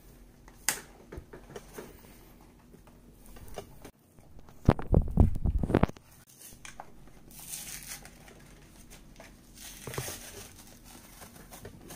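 Cardboard-and-plastic blister packaging of a Pokémon card pack being torn open and crinkled by hand, with scattered clicks and a stretch of loud bumps and rustling about five seconds in.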